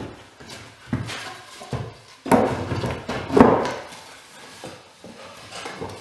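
Wooden legs of a homemade collapsible sawhorse knocking and scraping against its wooden base as a leg is moved into place: a few sharp knocks, then two louder wooden clatters about halfway through.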